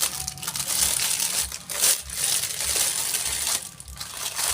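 Plastic packaging crinkling and rustling as it is handled and pulled open, a dense crackle of small clicks that dips briefly near the end.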